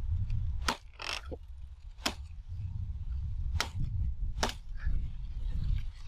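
A hooked machete chopping into the base of sugarcane stalks: about five sharp strikes, spaced irregularly, over a steady low rumble.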